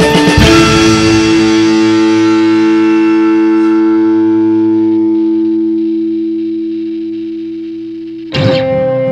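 Theme music ending: a distorted electric guitar chord struck with a final drum hit, held and slowly fading. Near the end a new, softer piece of music comes in abruptly.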